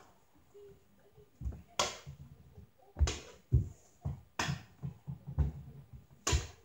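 Hockey stick clacking against a ball and the floor during stickhandling: four sharp clacks spaced a second or more apart, with softer dull thumps in between.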